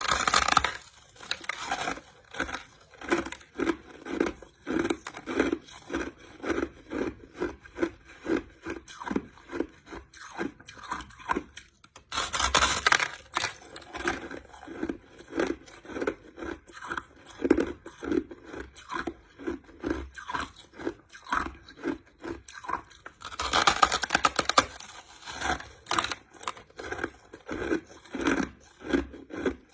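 A person chewing crushed ice: steady crunching chews about two a second, with louder bursts of crunching near the start, about 12 seconds in and about 24 seconds in, as fresh mouthfuls are bitten.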